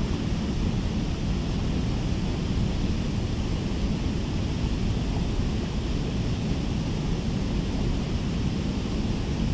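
Steady rushing noise of wind buffeting the microphone over moving river water, heaviest in the low end and unchanging.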